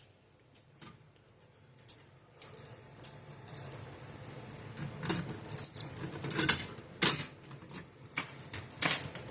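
Clicking and rattling as a fire alarm pull station is handled, with a couple of sharper clacks near the end.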